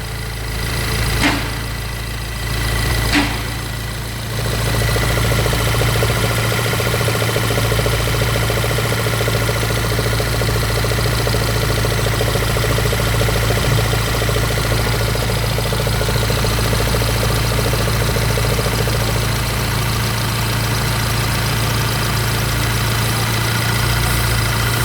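Car engine idling with a knock (стук) in it. A couple of sharp clicks come in the first few seconds, and the engine gets louder about four seconds in and then runs steadily.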